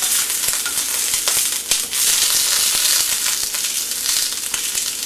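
Eggplant slices sizzling steadily in hot oil in a frying pan. A few sharp clicks come in the first two seconds as chopsticks turn the pieces over against the pan.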